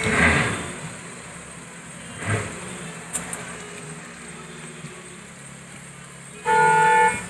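Roadside traffic hum with a short vehicle horn blast near the end, a flat steady tone that cuts in and out abruptly; a couple of soft knocks earlier.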